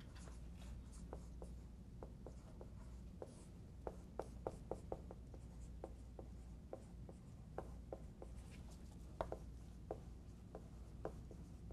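Dry-erase marker writing on a whiteboard: a run of faint, quick taps and squeaks as the letters go down, over a low steady hum.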